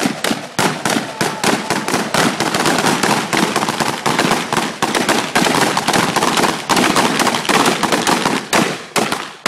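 Rapid, overlapping gunfire from several shooters firing M4-type 5.56 mm rifles at once, many shots a second with no pause.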